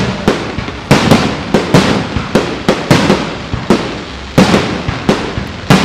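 Fireworks display: a rapid, unbroken run of sharp bangs from bursting shells, about three a second, each trailing off in an echo.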